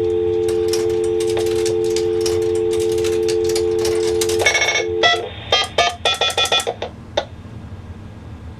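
Payphone dial tone, a steady two-note hum, with clicking over it. About four and a half seconds in it stops as a touch-tone number is keyed, a quick run of short tone beeps, followed by a single click.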